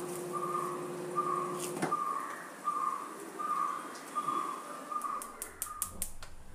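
A high whistle-like tone repeating evenly, about one short note every three-quarters of a second, stopping near the end. A low steady hum cuts off with a click about two seconds in, and a few sharp clicks come just before the end.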